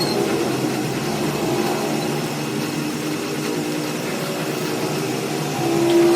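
Metal lathe running steadily with a machine hum that swells briefly louder near the end.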